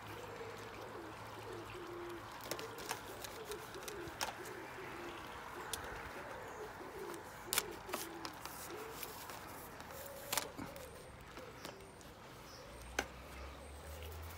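A pigeon cooing over and over in the background, with a handful of sharp clicks and knocks as plastic antenna tubes are handled and fitted to their mount; the loudest knocks come about seven and a half and ten seconds in.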